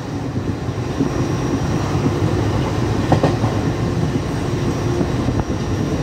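A train running along at speed, heard from inside a passenger carriage through an open window: a steady rumble of wheels on rails, with a few faint clicks.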